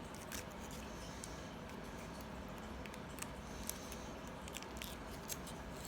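Faint handling noises from a Kinder Surprise egg: scattered light clicks and small rustles over a steady low hiss.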